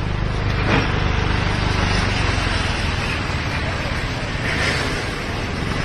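Mercury outboard motor running steadily at idle, a constant low hum under a wash of outdoor noise.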